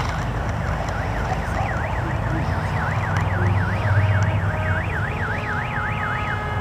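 Electronic siren warbling rapidly up and down about four times a second, then switching to steady held tones near the end, over a low rumble.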